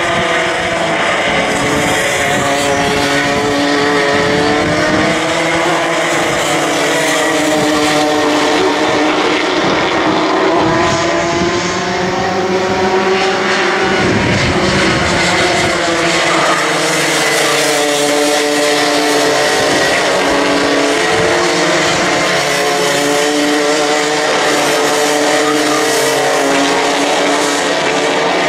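Two-stroke racing kart engines, several at once, revving up and down as the karts brake into corners and accelerate out, their overlapping pitches rising and falling.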